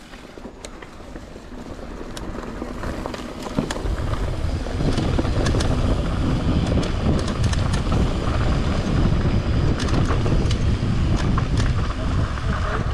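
Mountain bike being ridden along a dirt trail and picking up speed: tyre rumble and wind on the microphone growing louder over the first few seconds and then holding steady, with frequent sharp clicks and rattles from the bike.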